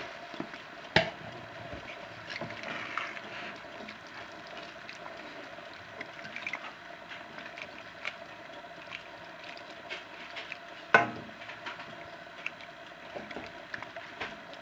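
Risotto simmering and bubbling in a metal pan with freshly added stock while a wooden spoon stirs through the rice. Two sharp knocks stand out, about a second in and again near eleven seconds.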